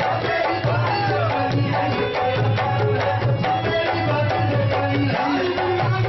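Qawwali music: tabla playing a steady rhythm over held harmonium notes.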